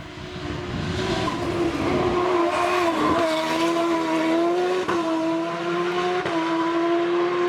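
Hillclimb race car engine at high revs, growing louder over the first two seconds as it approaches and then held steady and loud, with a few short dips in pitch.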